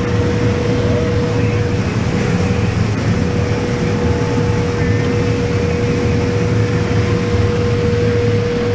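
Combine harvester running steadily while harvesting corn, heard from inside the cab: a constant low drone with a steady whine held at one pitch.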